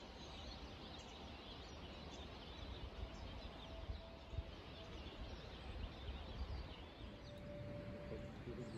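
Dawn chorus of wild birds: many small birds chirping and singing at once, with a few long, steady, lower notes partway through, over a faint low rumble.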